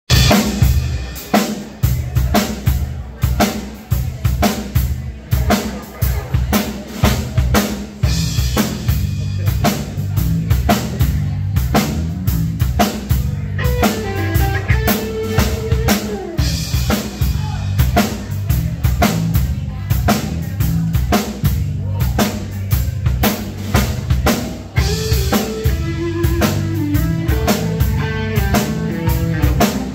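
Live rock band playing without vocals: a drum kit keeps a steady beat under electric bass and electric guitar. Melodic lines stand out above the beat about halfway through and again near the end.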